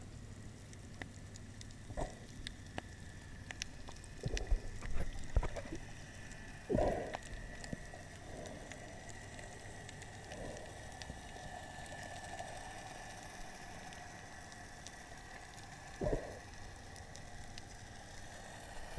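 Underwater sound through a submerged camera: a muffled bubbling, watery background over a faint steady hum, with several dull thumps and knocks, most between about four and seven seconds in and one more near the end.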